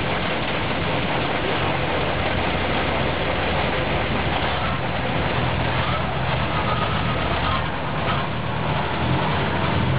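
KrAZ military truck's diesel engine running, a steady low hum under heavy mechanical noise.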